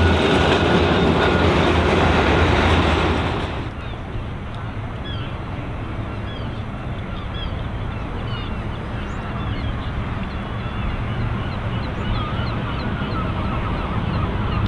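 A double-deck heritage tram running past on its rails with a low rumble and motor hum, cut off abruptly about three and a half seconds in. After that, a steady background hiss with many birds chirping and calling.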